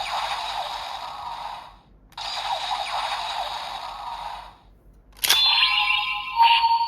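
Electronic sound effects from a Bandai DX Ultraman Max key toy: two noisy, swirling whooshes of about two and a half seconds each, then a sharp click a little after five seconds, followed by a bright electronic tone.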